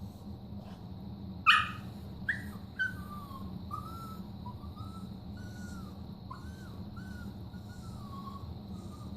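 Dog whining: a string of short, high, wavering whines, with a sharp, loud yelp about a second and a half in and two shorter cries soon after.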